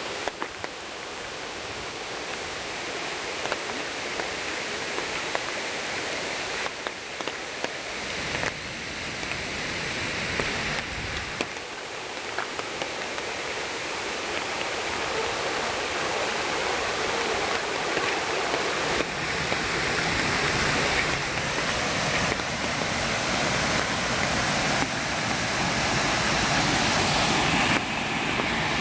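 Steady rush of water from Shiraito Falls, a wide low curtain of many small falling streams, growing gradually louder through the stretch.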